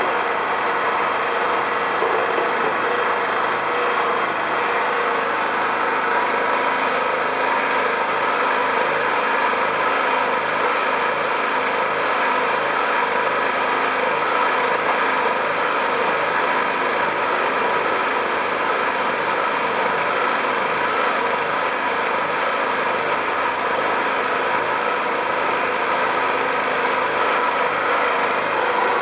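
Briggs & Stratton 2000-watt generator's small single-cylinder petrol engine running at a steady speed.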